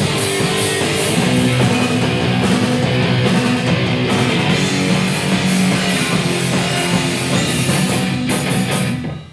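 Loud rock music with electric guitar and drums, cutting off near the end.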